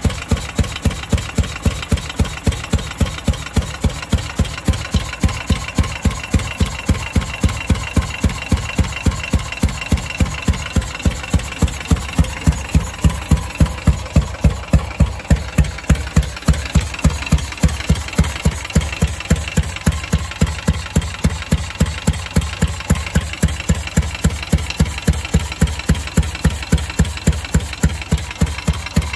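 1929 Moto Guzzi Sport 14's 500 cc IOE horizontal single-cylinder engine idling, with slow, even exhaust beats at about three a second.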